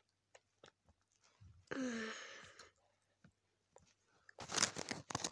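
A child chewing sour gum, with faint wet mouth clicks. About two seconds in she gives a short voiced hum or groan at the sourness. Near the end a loud rustling, crackling noise of the phone being handled close to her face and hair starts.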